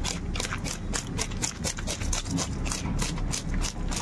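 Knife scraping scales off a large snakehead fish in quick repeated strokes, about four or five a second, the blade rasping against the scales.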